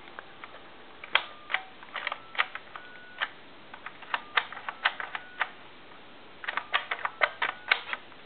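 Push-button keypad of a Western Electric donut telephone being pressed digit by digit: a series of sharp key clicks in uneven groups, several with a short touch-tone beep. This is a dialing check of the repaired keypad.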